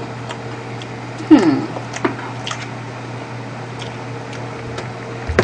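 A woman eating: faint chewing and small clicks over a steady low hum, with a short vocal sound from pursed lips falling in pitch about a second in.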